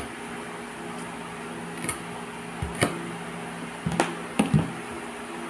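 A kitchen knife knocking on a bamboo cutting board as celery is cut and handled: a handful of short sharp knocks, a cluster of the loudest about four seconds in. A steady low appliance hum runs underneath.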